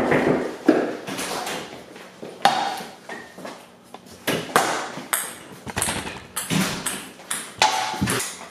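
Ping-pong ball bouncing and knocking off a beer pong table and plastic cups: a series of irregular, sharp, light clicks and pings.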